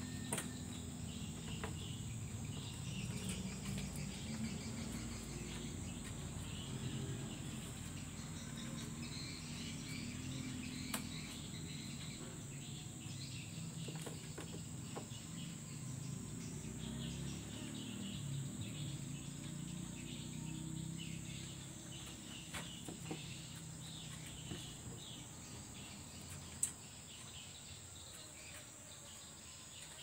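Outdoor ambience dominated by a steady high-pitched insect drone, over a low hum, with a few short clicks, the sharpest one near the end.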